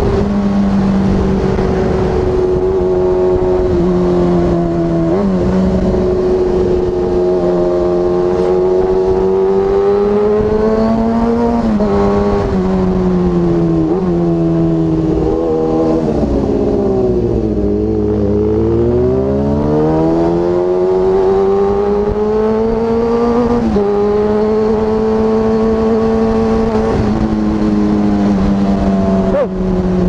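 Kawasaki ZX-6R inline-four engine heard from the rider's seat while riding. It holds a steady note, drops slightly in pitch a few times, falls away about two-thirds of the way through as the throttle closes, then climbs back up and settles again.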